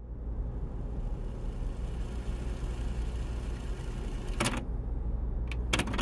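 Steady low rumble with a cluster of sharp clicks about four and a half seconds in and two more near the end.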